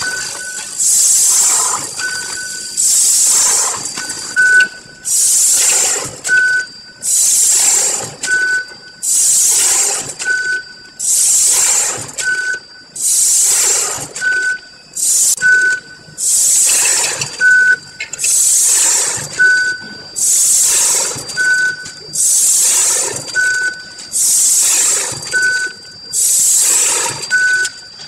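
ZV-320A vertical form-fill-seal packing machine bagging dry dog-food kibble, cycling about every two seconds. Each cycle gives a loud hiss of compressed air and a short beep, over a faint steady high whine.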